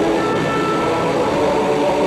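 Steady droning background music made of sustained low tones. A brief higher tone sounds for under a second near the start.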